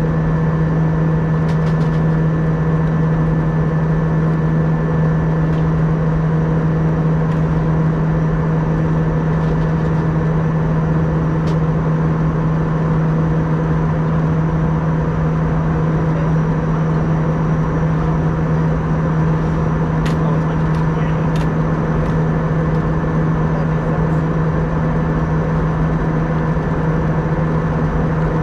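Steady drone inside an Airbus A320's cabin: a strong low hum with fainter steady tones above it and a few faint ticks now and then.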